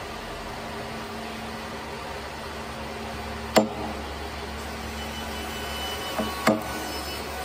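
Carpenter's hammer striking the handle of a wide timber chisel to cut a joint into a wooden beam: one sharp blow about halfway through, then a light tap and a harder blow near the end, over a steady workshop hum.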